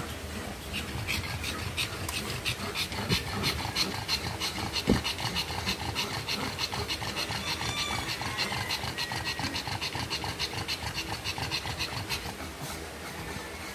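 Mother pug panting rapidly and evenly while in labour, delivering her puppies.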